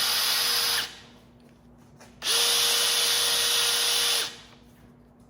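Drill press running with its bit cutting into a pool ball in two bursts: the first ends about a second in, and a longer one runs from about two to four seconds in. The motor's steady hum carries on between them.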